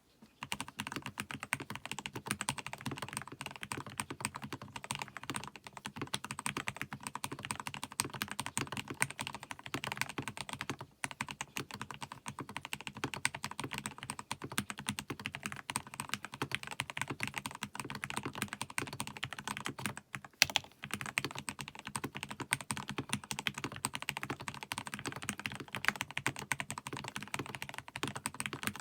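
Fast, continuous typing on a Next Time 75 mechanical keyboard with lubed Gateron Yellow linear switches, a tape mod and AJAZZ black pudding keycaps. There are short pauses about eleven and twenty seconds in, with one louder keystroke right after the second pause.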